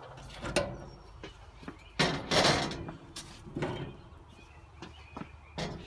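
Metal grill cooking grates being lifted out of the firebox: a clank, then metal scraping and sliding for about a second, then a few lighter knocks.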